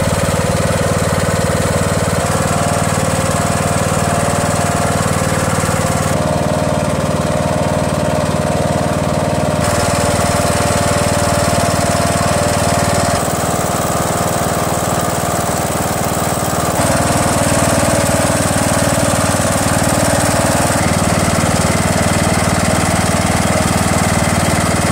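Rebuilt riding lawn tractor engine running steadily, exhausting through a welded-up muffler.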